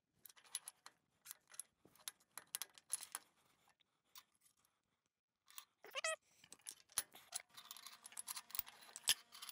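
Faint scattered clicks and clinks of steel lathe headstock parts (spindle, taper roller bearing, gears) being handled and shifted by hand. A short rising squeal comes about six seconds in, and a faint steady hum joins for the last couple of seconds.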